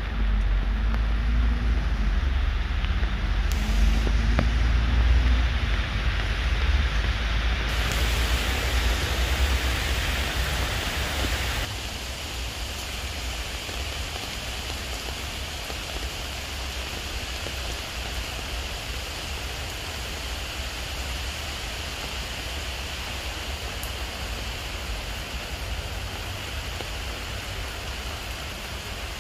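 Steady rain falling on leaves and a wet paved path, an even hiss. For roughly the first twelve seconds a low rumble sits under it, then drops away suddenly, leaving the rain alone.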